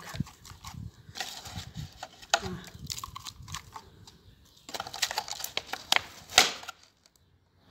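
Hands working soil in a plastic pot: irregular rustling and crinkling of the plastic and scraping of loose soil, with a few sharp clicks.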